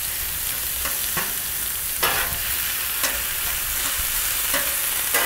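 Ground beef sizzling on the steel top of a 22-inch Blackstone griddle while metal spatulas chop and scrape it against the plate, with a scrape or clack about once a second over a steady frying hiss.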